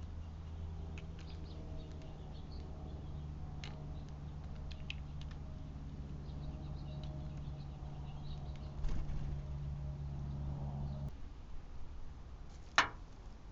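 A steady low mechanical hum that cuts off suddenly about eleven seconds in, with scattered light clicks and one sharp click near the end.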